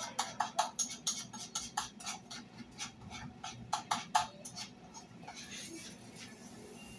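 A metal spoon scraping and clicking against a skillet as rice is stirred: quick, uneven clicks several times a second that stop about five seconds in, over a low steady hum.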